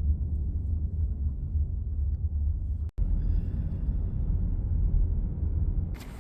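Steady low road rumble of a car driving. It cuts out for an instant about three seconds in, then resumes, and near the end gives way to a brighter, hissier noise.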